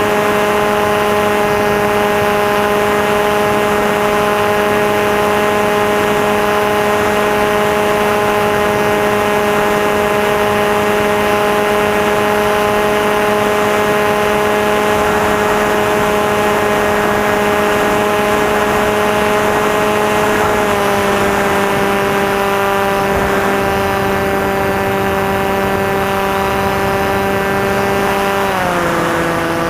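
Electric motor and propeller of a Maxi Swift model flying wing running at a steady high throttle, a constant droning whine. The pitch steps down slightly about 21 seconds in and again just before the end as the throttle is eased back.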